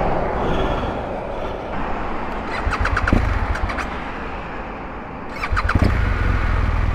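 BMW GS Adventure motorcycle's starter cranking and the engine being restarted after running its tank dry. A first try about 3 s in surges briefly and fades; a second try near the end catches, and the engine settles into a steady idle. Passing traffic can be heard before this.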